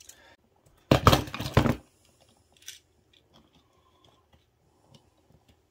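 Handling noise from stiff electrical wires and a plastic wire nut being worked at an outlet box: a loud burst of crackling and rubbing about a second in, then scattered faint clicks.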